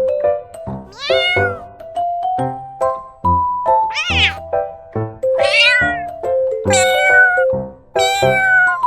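Domestic cat meowing five times, each meow a drawn-out call that slides in pitch, over background music with a simple stepping melody.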